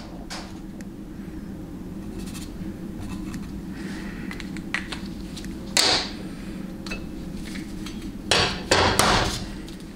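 Metal parts of a 700R4 transmission front pump knocking against the cast aluminium pump body as the steel straight edge and rotor are handled: a few faint ticks, then a sharp clack about six seconds in and two more close together near the end. A steady low hum runs underneath.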